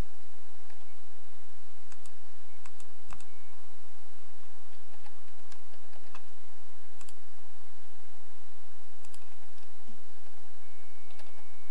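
Scattered, irregular clicks of computer keyboard keys, over a steady low electrical hum and hiss.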